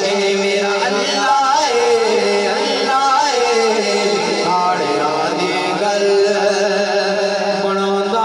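Naat singing: a voice holds long, wavering sung notes with no clear words over a steady droning tone underneath.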